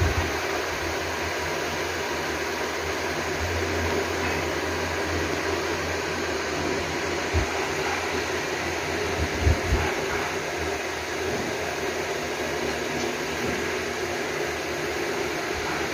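Steady whir of an electric fan running in the room, with a few soft bumps about halfway through.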